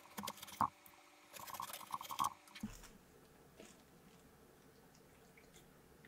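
A metal ladle scooping and scraping the crunchy, wet flesh out of a half watermelon in short irregular strokes. About two and a half seconds in it stops abruptly, leaving near silence with a faint tick.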